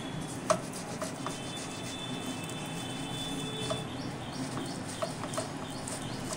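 Boiled potato being rubbed over a round stainless-steel grater set on a plastic bowl, with a few light clicks and knocks of the metal grater.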